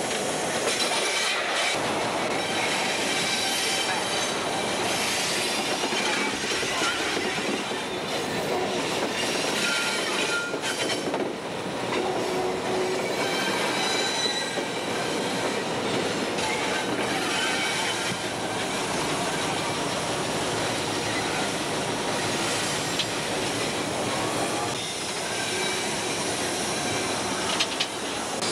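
Freight train on the move, heard from the diesel locomotive: a steady din of engine and wheels rolling on the rails, with brief squeals of wheels on the curve now and then.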